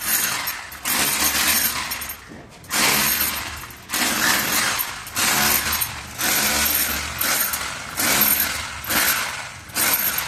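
Power tool cutting a channel into masonry for concealed AC piping, run in about eight short bursts, each starting sharply and fading away.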